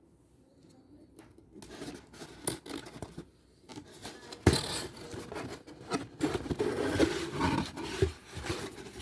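A mystery box being opened by hand: irregular scraping, rustling and tearing of the packaging, with many small clicks and a sharp knock about halfway through.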